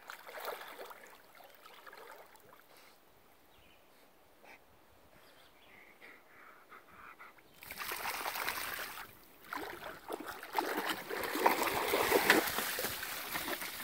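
Alaskan Malamute swimming in a lake, with faint water sounds at first. About halfway through, loud splashing starts as the dog wades through shallow water, peaking near the end.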